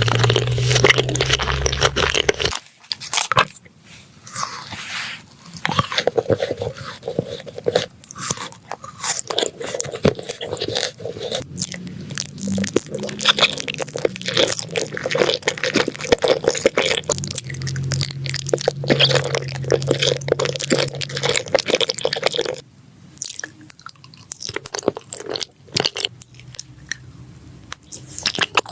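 A person chewing and biting crunchy food, with dense, irregular crunches and crackles.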